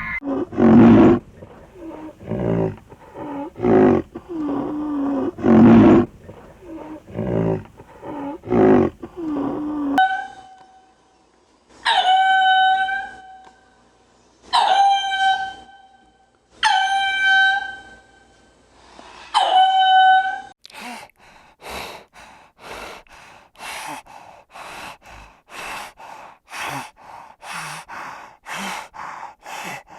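Wild animal calls in three parts. First comes a string of deep, rough calls for about ten seconds, then five clear pitched calls about two and a half seconds apart, then a fast run of short rasping calls, about two a second.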